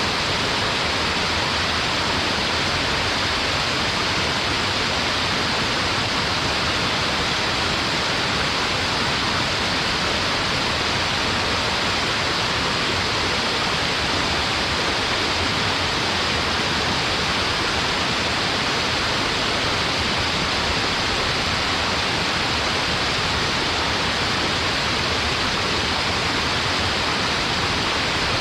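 Waterfall: water falling and splashing into a stream in a steady, unbroken rush.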